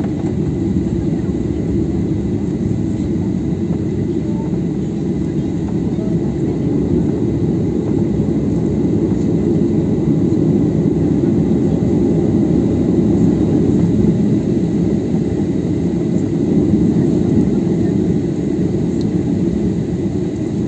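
Steady rumble of a jet airliner's engines and airflow heard from inside the cabin as the plane taxis, with a faint high whine above it. It grows a little louder through the middle.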